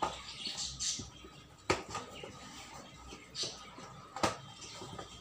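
A small cardboard box of flowerpot fireworks being handled and turned over, with light scraping and rustling and two sharp taps or clicks, one about a second and a half in and one past the middle.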